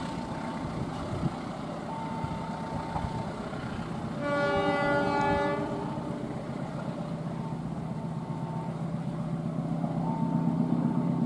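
CC 203 diesel locomotive running as it hauls a passenger train away, its engine rumble growing stronger near the end. About four seconds in, its horn sounds one blast of about a second and a half.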